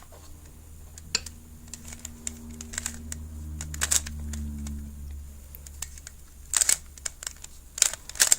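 Plastic clicks and clacks of a 3x3 Rubik's Cube's layers being turned by hand, in irregular bursts with quick flurries near the end, over a faint low hum.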